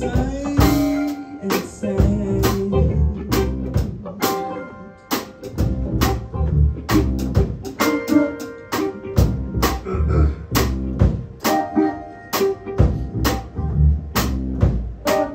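Live jazz band playing: drum kit keeping a steady beat of cymbal and drum strokes under electric guitar, double bass and grand piano, the closing bars of the tune.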